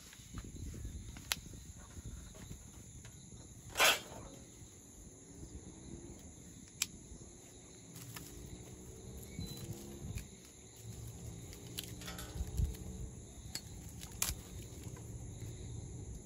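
Dry branches being snapped and handled by hand: rustling twigs with a few sharp cracks, the loudest about four seconds in. A steady high buzz of insects runs behind.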